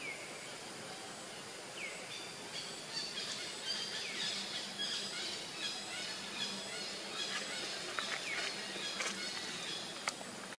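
Outdoor ambience: a steady hiss with birds chirping high, busiest through the middle, and a short downward-sliding whistled call every couple of seconds.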